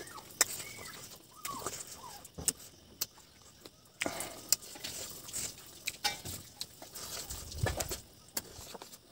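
Close-up eating sounds of a person picking at a chicken drumstick with the fingers: wet lip smacks, sucking on fingers and bone, and short clicks. A few faint bird chirps come in the first two seconds, and there is a dull thump about three-quarters of the way through.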